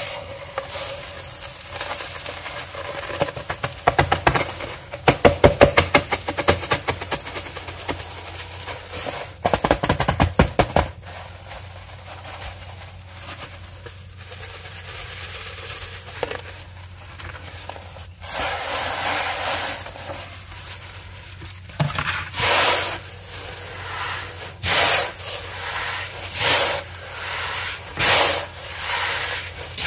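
Dry, dyed cornstarch pieces being crushed into powder, crackling and crunching in quick runs. In the second half comes a series of hissing, swishing strokes about every second or two.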